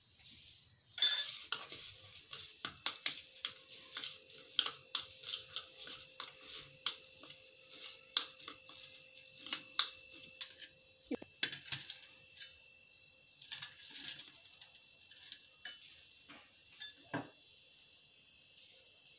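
Steel spoon stirring chopped vegetables and sauce in a plastic bowl: quick clicks and scrapes of the spoon against the bowl, the loudest about a second in, thinning out after about twelve seconds, with a single knock near the end.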